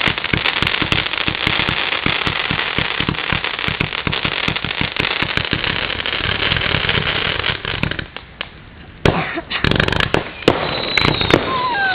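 Aerial fireworks going off in a dense, rapid run of crackling reports for about eight seconds, echoing back off the lake. After a short lull come a few loud bangs, then falling whistles near the end.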